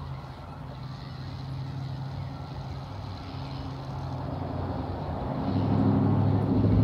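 Low engine hum of a motor vehicle, growing steadily louder and loudest near the end.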